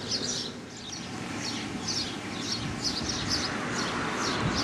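A small bird chirping over and over, short high chirps about twice a second, over a background of outdoor noise that swells slightly toward the end.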